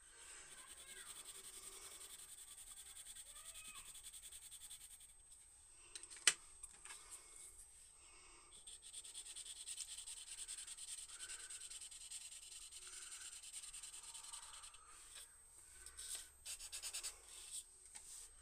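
Coloured pencil, then a blending pen, rubbed over kraft paper in quick back-and-forth strokes: a faint dry scratching. There is one sharp click about six seconds in.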